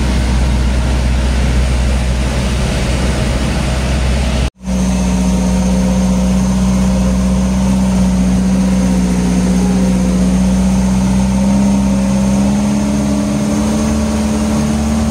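Truck engine running steadily under way, cutting out abruptly for a split second about four and a half seconds in, then droning on with a strong steady hum that rises slightly in pitch near the end.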